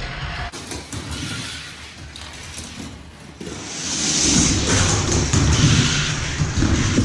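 Die-cast Hot Wheels cars rolling down a plastic race track, a rattling rumble with a few knocks that grows much louder about three and a half seconds in.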